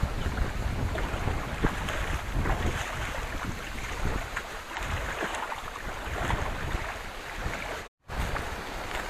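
Wind buffeting the microphone outdoors, a steady low rumbling noise with scattered small knocks. The sound cuts out completely for a moment about eight seconds in.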